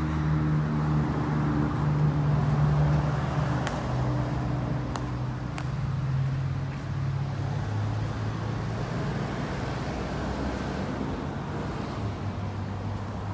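An engine running at idle, a steady low hum whose pitch drifts slightly lower, with a few light clicks about four to six seconds in.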